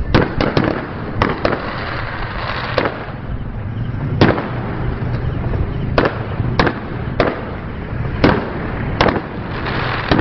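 Fireworks display: about a dozen sharp bangs at irregular intervals, some in quick clusters near the start, over a steady background din.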